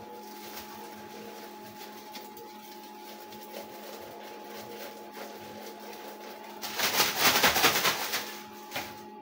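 Cotton candy machine running with a steady motor hum. About seven seconds in, a loud crackly noise lasts for about a second and a half.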